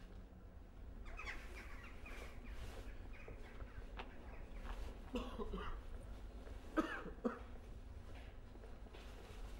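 Outdoor ambience with a steady low rumble, scattered short chirping calls, and two short loud cough-like sounds about five and seven seconds in, the second the loudest.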